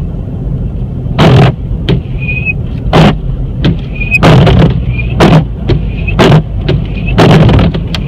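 Windshield wipers running over dry glass, thumping through their strokes roughly once a second, with short high squeaks in between, over a steady low hum.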